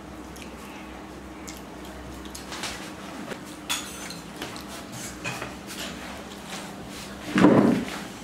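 Light clinks and scrapes on stainless-steel plates as rice is eaten by hand, with a louder burst of sound about seven and a half seconds in.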